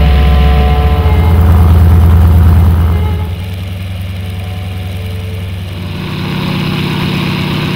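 Airplane engine running with a low, steady drone. It is loud for the first three seconds, then drops in level, and its note changes about six seconds in.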